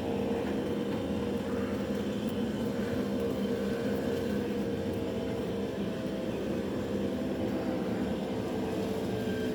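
Chainsaw engine running steadily at high revs, a constant drone that holds one pitch.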